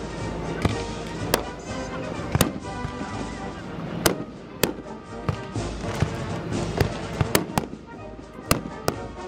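Aerial firework shells bursting: a series of about a dozen sharp bangs, some in quick pairs, with music playing underneath.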